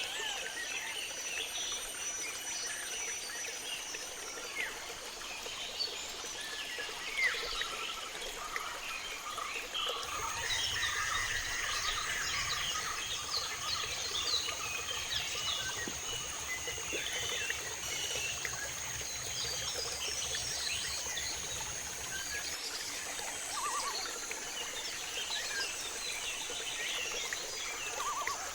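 Tropical rainforest ambience: a steady high-pitched insect drone under many chirping calls of birds and frogs. A low rumble comes in about ten seconds in and stops again a little after the twenty-second mark.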